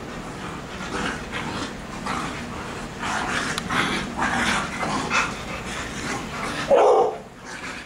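Pit bulls playing: a run of short panting and huffing breaths, then one short, loud dog vocalisation near the end.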